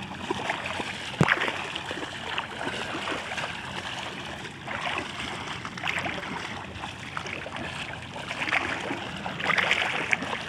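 Shallow water sloshing and splashing around legs wading through it, with a sharp click about a second in.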